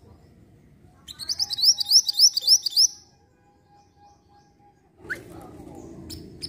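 Minivet song: a quick run of about nine high, rising notes lasting about two seconds, starting about a second in. Faint noise and a couple of sharp clicks follow near the end.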